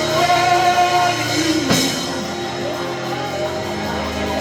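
Live worship band music playing sustained chords, with a held note in the first second and one sharp hit about halfway through.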